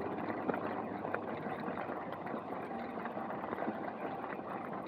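Steady road and wind noise from a trike rolling along a road, with no sudden events.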